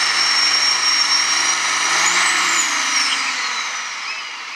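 John Deere farm tractor's diesel engine running hard under load while pulling the sled, with a high whine that climbs about two seconds in and then slides down as the engine winds down near the end.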